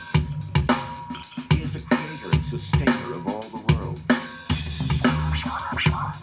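Drum-heavy music with a steady kick-and-snare beat played through an XDOBO Vibe 50 W Bluetooth speaker. About halfway through, a pitched part bends up and down over the beat.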